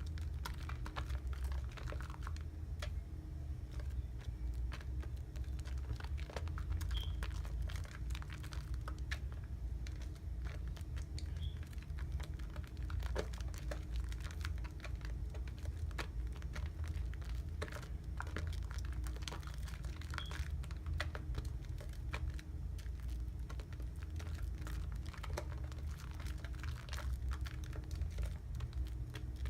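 Wet soap lather worked by hand, a dense run of small squishing and crackling clicks over a steady low hum.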